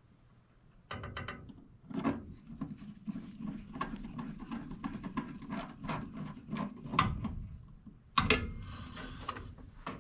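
Hands working with tools and small metal furnace parts: a quick run of small clicks and rattles, then a louder clatter about eight seconds in.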